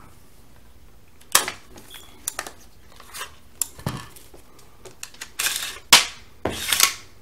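AR-15 rifle being worked by hand: scattered metallic clicks and clatter as it is handled, then the charging handle is drawn back with a short sliding rasp and let go, the bolt slamming forward with a sharp metallic clack about six seconds in to chamber a snap cap, followed by a brief rattle.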